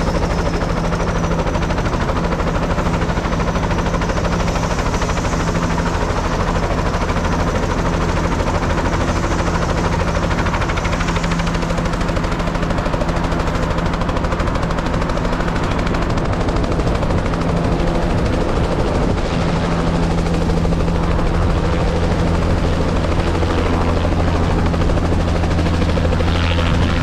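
Helicopter running with its rotor turning and its engine at a steady pitch, then growing louder over the last few seconds as it lifts off the pad.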